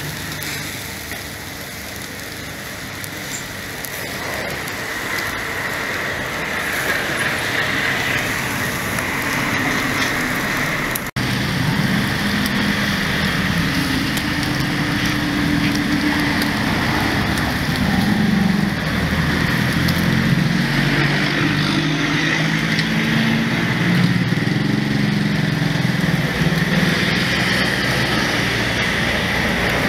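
Steady outdoor street noise, mostly passing road traffic, mixed with the hiss of pork skewers grilling over charcoal. It drops out for an instant about eleven seconds in; after that a low, wavering engine-like hum is louder.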